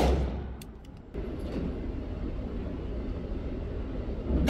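Two shots from a Hi-Point CF380 .380 pistol, one right at the start and one about four and a half seconds later, each ringing briefly in the echo of an indoor range. A steady noisy rumble lies between the shots.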